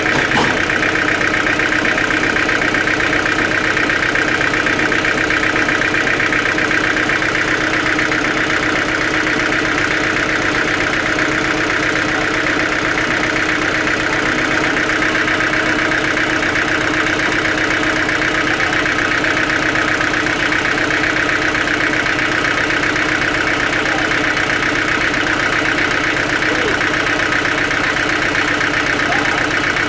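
Sawmill machinery running at a steady, unchanging level.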